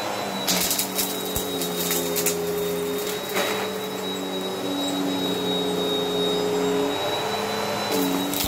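Bissell CleanView upright vacuum running over carpet: a steady motor whine whose lower tones shift in pitch as it is pushed along. Short bursts of crackling come as crunchy debris is sucked up, about half a second in, around two and three seconds in, and near the end.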